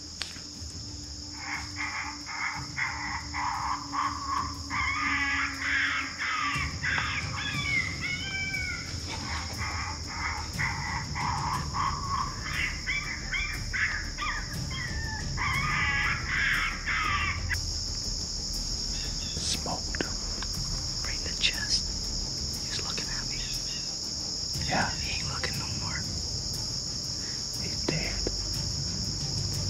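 A pack of coyotes yipping and howling together in a dense, wavering chorus that starts about a second in and breaks off at about 17 seconds, followed by a few scattered calls. A steady high trill of crickets runs underneath.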